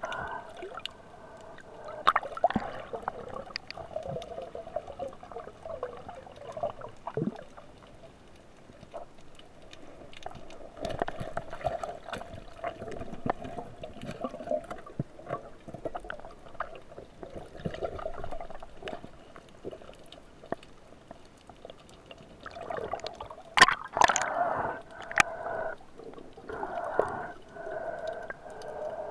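Underwater water movement and bubbling from a diver hauling in a spear line and grappling a speared fish among rocks, with scattered knocks and clicks. The loudest clicks come in a cluster about three-quarters of the way through.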